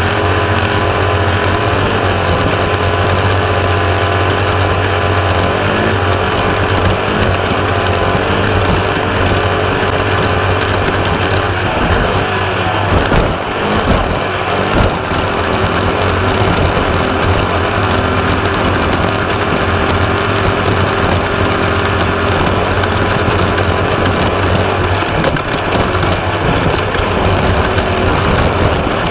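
Class 1/2-1600 desert race car under way, its air-cooled 1600cc VW flat-four running steadily, with the chassis and drivetrain rattling continuously over rough ground. The engine note dips and breaks up briefly about halfway through.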